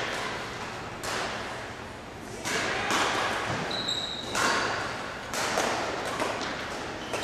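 Badminton rally: rackets strike the shuttlecock about five times, a sharp smack every second or so, each ringing on in the large hall. There is a brief high squeak a little before the middle.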